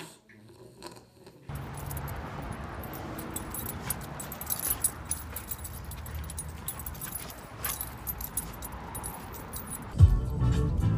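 Light metallic jingling and clinking of a Rottweiler's collar and leash hardware as it walks, over a steady rush of noise. About ten seconds in, music with a heavy beat starts.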